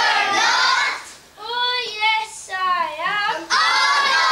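A group of young children's voices together, then about a second in a single child singing a short line alone, before the whole group comes back in loudly near the end.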